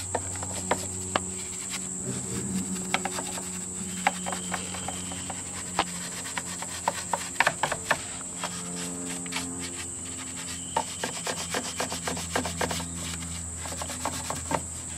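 Soft-bristled detailing brush scrubbing over grimy engine parts and hoses, in short irregular scratchy strokes with small clicks and taps, over a steady high-pitched whine.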